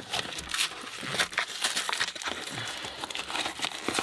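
Sealed retail packaging being broken open by hand: dense, irregular crinkling and crackling with sharp snaps and some tearing.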